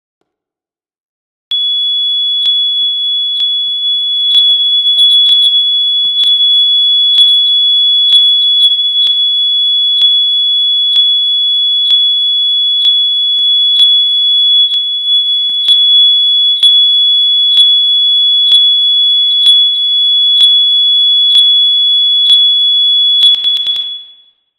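Fire alarm sounder giving one steady, continuous high-pitched tone, with a sharp click about once a second. It starts abruptly about a second and a half in and cuts off near the end.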